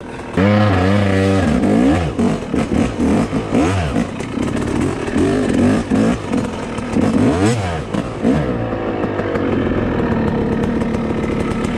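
Yamaha YZ250 two-stroke dirt bike engine heard from on board while riding a trail, revving up and dropping back over and over through the throttle changes, then holding a steadier note near the end.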